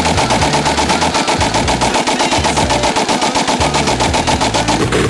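Yugo M72 RPK-pattern rifle in 7.62x39 being bump fired: a rapid, even string of shots at about nine a second, fast as full-auto fire.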